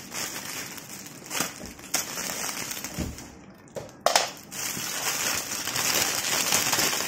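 Clear cellophane gift wrap crinkling and crackling as it is cut with scissors and pulled open by hand, with a sharp crackle about four seconds in and denser, louder crinkling after it.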